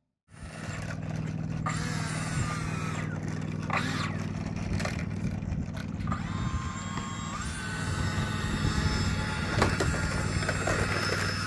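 A steady low mechanical hum, with scattered light knocks and scrapes; a faint tone steps up in pitch about seven seconds in.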